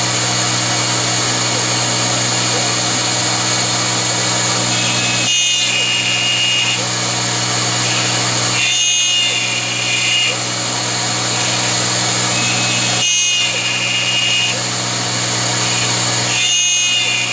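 Taig CR19 milling machine running a cutting program: the spindle runs steadily as the cutter works a wooden block. Four times, about every four seconds, a brief higher whine joins in while the low hum dips.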